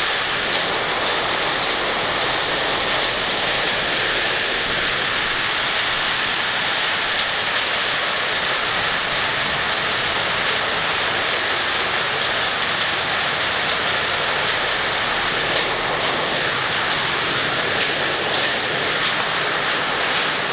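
Heavy rain and hail pelting wet pavement in a steady, dense hiss.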